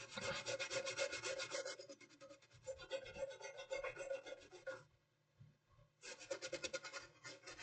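Faint, rapid scrubbing on a laptop motherboard in three spells: corrosion being cleaned off the pins of a chip.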